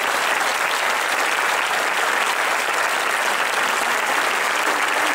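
Audience applauding, a steady dense clapping throughout.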